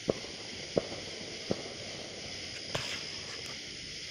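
Three sharp firecracker pops, muffled by distance and about 0.7 s apart, then a softer crackle near three seconds in, over a steady high hiss.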